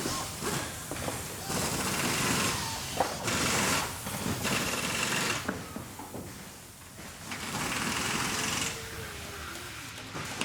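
Factory floor background: machinery running with scattered clicks and knocks, and four separate bursts of hissing, each lasting about half a second to a second.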